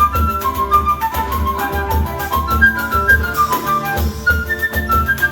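Flute playing a quick, running choro melody over a steady rhythmic accompaniment of guitar and hand percussion.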